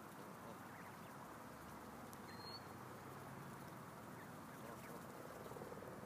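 Faint sounds of a family of Canada geese and goslings foraging, with soft pecking and rustling and a few short, soft calls.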